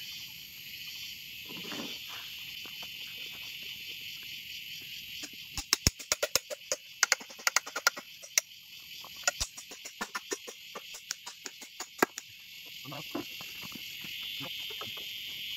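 Insects shrill steadily in the background. About a third of the way in, a quick run of sharp knocks and cracks begins as green bamboo is chopped and split into strips; it stops a little past three quarters.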